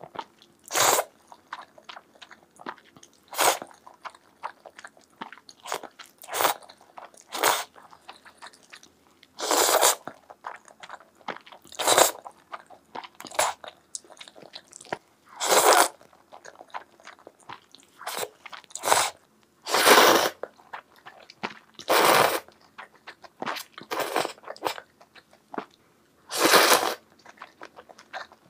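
Close-miked noodle slurping and chewing. Loud slurps come every two seconds or so as strands are sucked in from chopsticks, with faint wet chewing and smacking between them.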